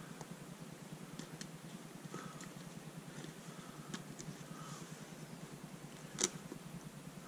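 Faint handling of a plastic boot clip and a convertible top boot cover as fingers work the clip through a hole cut in the cover, with light scattered ticks and one sharper click about six seconds in. A low steady hum underlies it.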